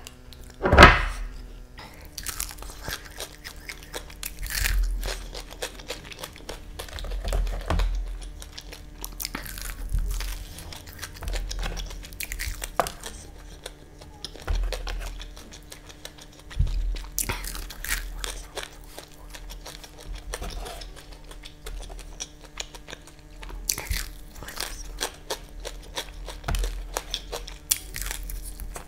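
Close-miked eating of crispy fried chicken: a loud crunchy bite about a second in, then repeated crunching and chewing as more bites are taken.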